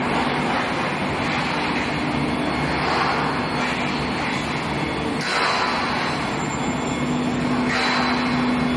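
Induction heat-treatment line for oil drill pipe running: a loud, steady industrial noise with a thin high tone and a low hum. The upper hiss surges briefly about five seconds in and again near the end.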